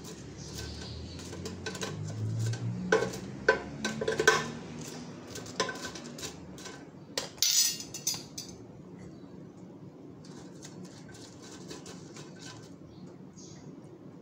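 Metal spoon clinking and scraping against the mesh of an air fryer basket as pakoras are turned over, a string of sharp clicks through the first half, then it goes quiet.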